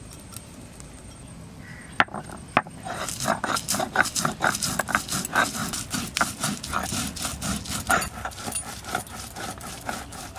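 A stone roller (nora) rocking back and forth on a stone grinding slab (shil), crushing dry-fried spices into a paste. Two sharp knocks about two seconds in, then a steady rhythm of grinding strokes, about three a second.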